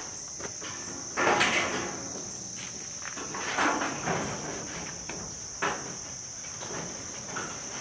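Steady high-pitched insect chirring, with a few short scuffs and rustles about a second in, around four seconds and near six seconds as a steel siding panel is held against the shed wall.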